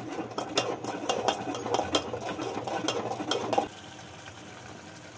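A spoon stirring and scraping thick tomato masala against a metal pot, a fast run of clicks and scrapes that stops suddenly about three and a half seconds in, leaving a faint steady hiss.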